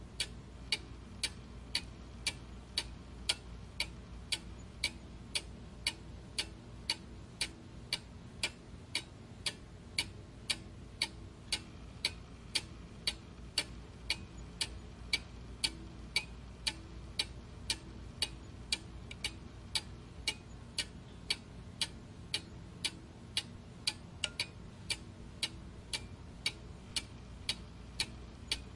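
Steady, evenly spaced ticking, about two ticks a second, like a clock, over a faint low hum.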